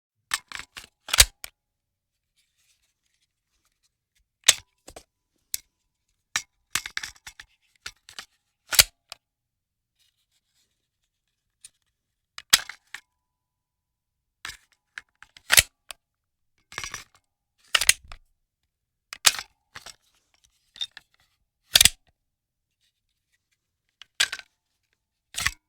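Pistol magazine handling: a series of sharp metallic clicks and snaps, some single and some in quick clusters, as the magazine is inserted, seated and released, with short silent pauses between.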